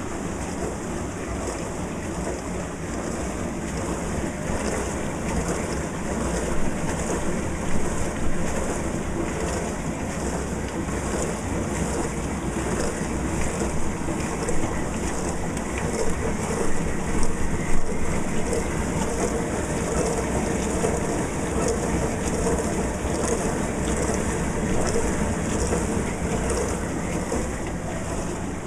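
Zanussi DW 400 dishwasher running a wash, water spraying inside the tub with a steady rushing noise and a faint regular swishing pulse.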